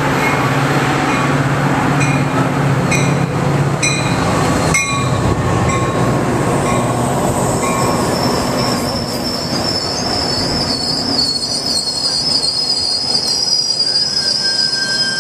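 Metra commuter train passing close alongside a platform. A low steady rumble and a string of sharp metallic clicks in the first half give way to a long, high, steady wheel squeal through the second half as the bilevel cars roll by.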